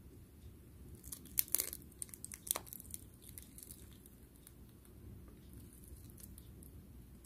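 Fingers peeling the shell off a boiled red-dyed salted egg: crackling of breaking shell fragments. A cluster of sharp cracks comes about one to three seconds in, then fainter ticks as the pieces come away.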